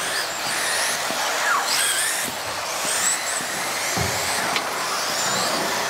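RC race cars lapping a track: several small motors whining, the pitch rising and falling as the cars accelerate and brake.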